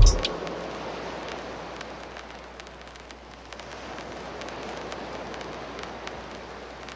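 Electronic outro music ends on a deep bass hit that dies away at the very start. A quiet, steady hiss with faint scattered crackles follows.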